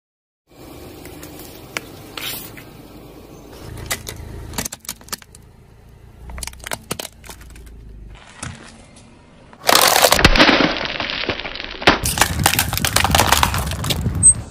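Car tyre slowly rolling over objects on pavement and crushing them. First quieter scattered crackles and clicks, then loud, dense crunching and cracking from about ten seconds in, including small plastic gems breaking under the tyre.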